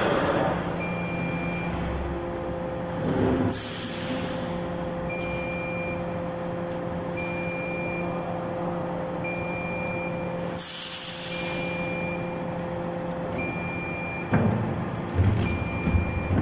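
Motorcycle tire hydraulic curing press running with a steady hydraulic hum while the press opens. A short high beep sounds about every two seconds, air hisses out in two bursts, and clunks come near the end.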